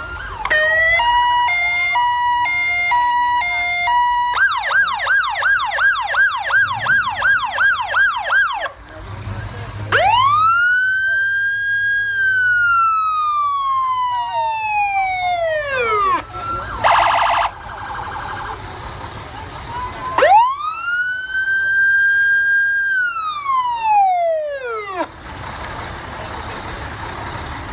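Fire department sirens in a passing parade: electronic sirens switching between stepped high-low tones, then a fast yelp warble, then a siren that wails up and slowly down twice, with a short horn blast between the two wails.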